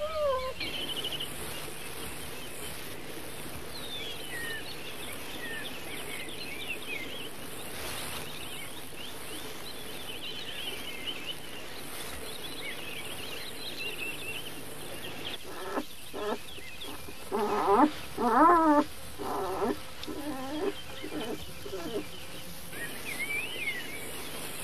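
Small birds chirping and singing in the background, then, starting about two-thirds of the way in, a run of loud wavering squeals and whimpers from newborn wolf cubs as they are taken from their den.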